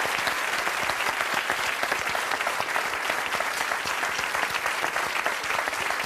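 Studio audience applauding: many hands clapping at once in a steady, dense patter.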